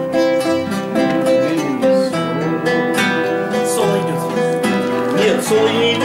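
Two nylon-string classical guitars playing an instrumental interlude, plucked and strummed chords with a melody line.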